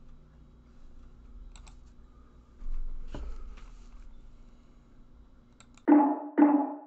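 Quiet room noise with a few scattered light clicks and one louder knock about three seconds in, as someone handles things close to the microphone. Near the end, outro music cuts in with two loud, ringing percussive hits half a second apart.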